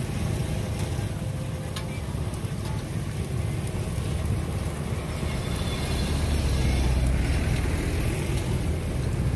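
Busy street ambience: a steady low rumble of road traffic, swelling a little about six seconds in.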